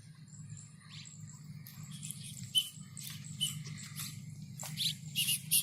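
White-breasted woodswallow (kekep babi) calling in short, sharp high chirps that start about two seconds in and come thicker and louder toward the end, over a steady low hum.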